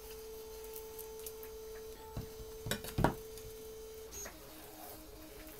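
Soft background music of long held tones that turns into a pulsing rhythm near the end. A few short knocks about two to three seconds in, the loudest just after three seconds, from a mirror and a roll of kapton tape being handled on a desk.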